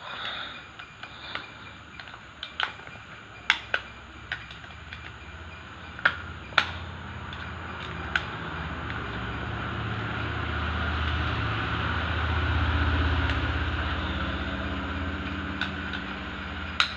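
Metal tools clicking and tapping against the parts of an automatic transmission clutch drum, with several sharp clicks in the first half and two more near the end. From about eight seconds a low, engine-like drone swells to a peak and then fades off.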